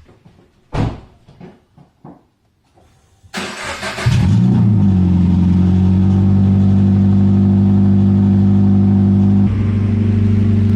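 A few thumps, then a 2013 Subaru BRZ's 2.0-litre flat-four is cranked and starts about three seconds in. It flares up in revs as it catches and settles into a loud, steady idle. It is running with its exhaust system removed.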